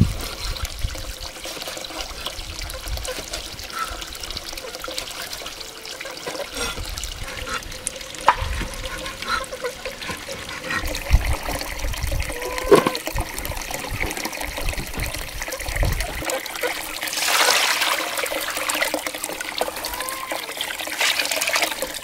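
Steady trickle of running water, with a few sharp knocks of a cleaver on a wooden chopping board around the middle.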